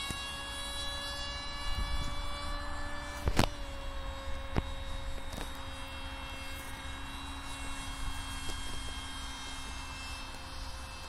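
Brushless 2212 2200kV motor and pusher propeller of an RC Saab JA 37 Viggen model jet in flight, giving a thin, steady buzzing whine whose pitch shifts slightly. A sharp knock about three and a half seconds in.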